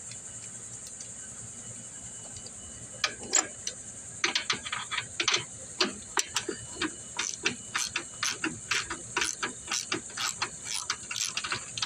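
Ratchet socket wrench clicking in quick runs as a 13 mm nut and bolt are turned off, starting about three seconds in. Crickets chirp steadily behind.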